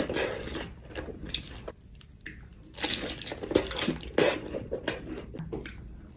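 Close-miked eating: irregular biting and chewing with wet, squishy mouth sounds and some crunch.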